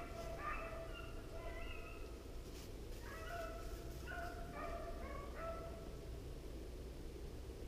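Rabbit-hunting dogs baying in short, high, repeated cries, in two spells with a pause between, then falling silent. This is typical of hounds giving tongue as they run a rabbit's scent.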